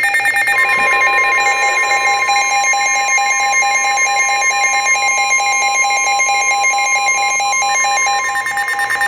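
NOAA Weather Radio 1050 Hz warning alarm tone, a steady electronic tone starting about half a second in, marking the start of a broadcast severe weather warning. Rapid electronic beeping runs over it.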